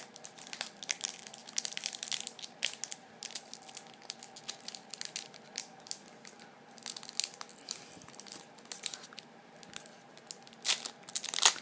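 Crinkling and tearing of a Pokémon card blister pack's plastic packaging as it is opened by hand: many short crackles in clusters, loudest near the end.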